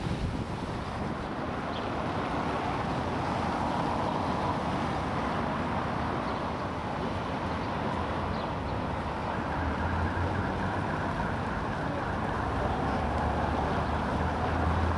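Steady town street ambience: an even hum of road traffic, with a low rumble that grows stronger about two-thirds of the way through.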